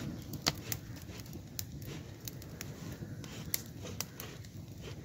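Small fire of dry twigs and leaves crackling, with sharp irregular pops over a low steady rumble.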